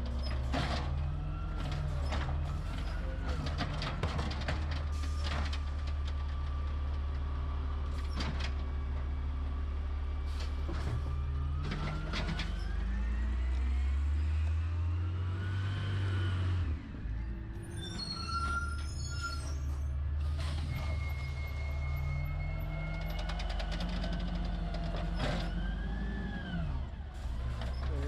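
Garbage truck's diesel engine running, with knocks and clatter. The engine revs up about halfway through and drops off sharply, followed by a brief high squeal of brakes.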